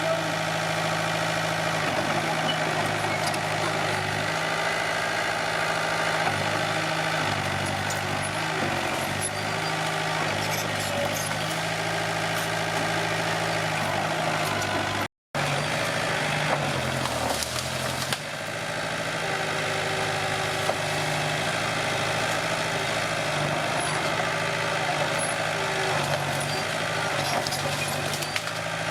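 Komatsu D21P bulldozer's diesel engine running under changing load, its pitch shifting up and down as it works. About halfway through there is a momentary break in the sound, and the engine note sags briefly soon after.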